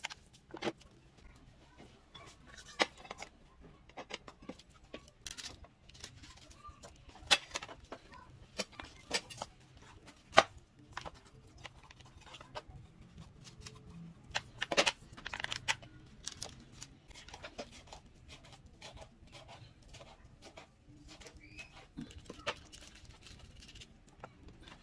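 Hands handling and seasoning whole raw red snapper in a plastic tray: scattered, irregular taps and knocks as the fish are lifted, turned and set back against the tray, with soft rubbing between them.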